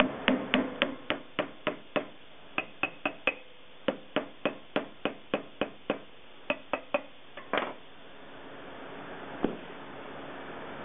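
Soft-faced mallet striking the motor hub of a centrifugal server blower, sharp taps about three or four a second in short runs, to move the shaft and bearings during a bearing change. After a pause, one duller single knock.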